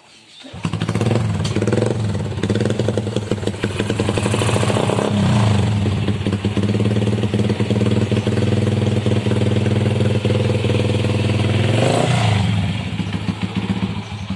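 Honda Grand single-cylinder four-stroke engine in a custom mini motorcycle fires up about half a second in and idles through an aftermarket muffler. It is revved briefly twice, about five seconds in and again near the end.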